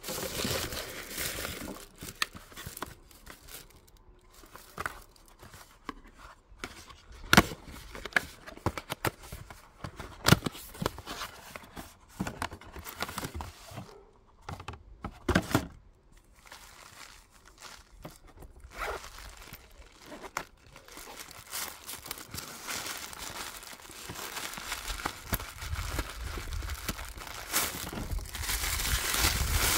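Tissue paper and packing paper rustling and crinkling as a gift box is unpacked by hand, with scattered taps and knocks of cardboard packaging being handled. The rustling grows denser near the end.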